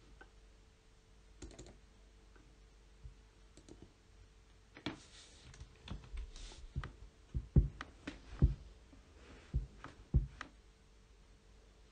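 Computer keyboard keystrokes: a few scattered clicks at first, then a flurry of typing about halfway through with several heavier key strikes.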